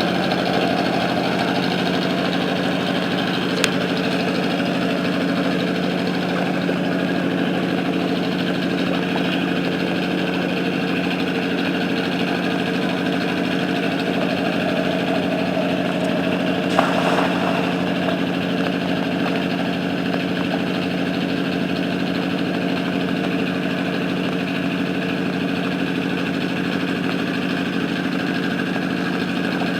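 A small engine running steadily at one constant speed, with a sharp click about four seconds in and a brief knock a little past the middle.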